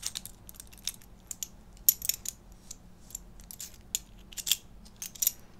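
A chunky metal chain choker's buckle and links being handled and fastened back on by hand: irregular light metallic clicks and clinks, with a sharper click about two seconds in and a quick run of them near the end.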